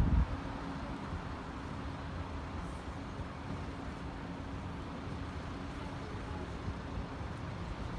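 Steady low rumble of vehicles running, with a brief steady hum that fades out about a second and a half in.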